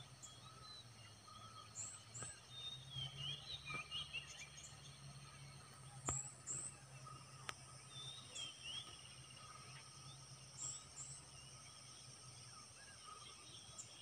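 Quiet forest ambience: insects droning steadily at a high pitch while small birds chirp in short calls, over a low steady hum. Two sharp clicks stand out past the middle, the first the loudest sound.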